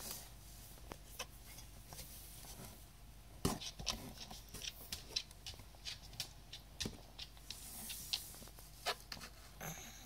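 Congested cat snuffling close to the microphone: a run of short, irregular wet clicks and snorts, loudest about three and a half seconds in and again near seven and nine seconds. The cat has the sniffles.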